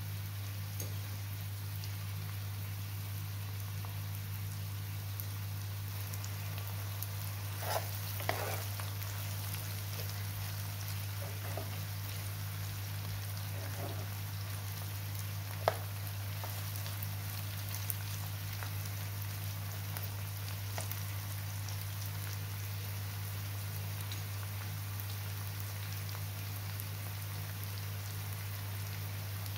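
Chopped onions sizzling in hot oil in a nonstick frying pan. A few scrapes and one sharp tap come from the utensil as they are stirred, over a steady low hum.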